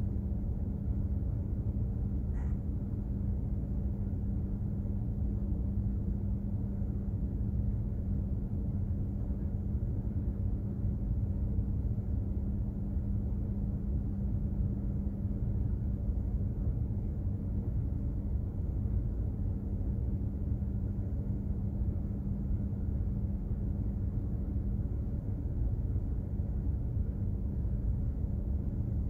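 Container ship's engine and machinery drone while underway: a steady low rumble with a constant hum.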